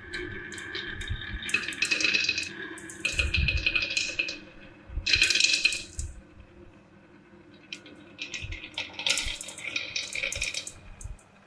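Marbles rolling and clattering down a plastic marble run, in several rattling bursts with a quiet pause about two-thirds of the way through.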